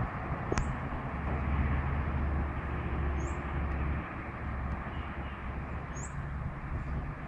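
Outdoor ambience: a steady low rumble and hiss, with three short high bird chirps about three seconds apart.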